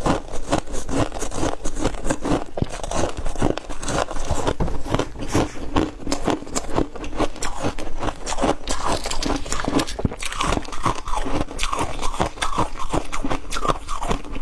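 Close-miked biting and chewing of crunchy freezer frost: a dense, uneven run of crisp crunches with no pause.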